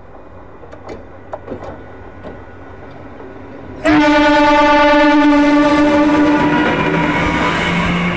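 MEMU electric train coming up the track, with a few faint clicks from the rails, then a loud horn blast starting suddenly about four seconds in and held for about three seconds. The horn gives way to a lower steady tone and the rumble of the train running over the track.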